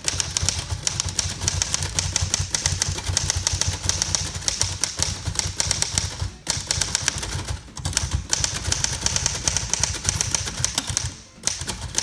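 1931 Royal 10 manual typewriter being typed on rapidly, a dense run of key and type-bar clacks with short breaks about six and a half seconds in and near the end.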